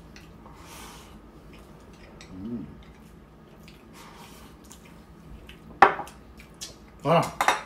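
Eating at a table with chopsticks and small bowls: soft clicks of chopsticks against the bowls and quiet chewing and slurping. A brief low hum comes about two and a half seconds in, and a few short, louder sounds follow in the second half.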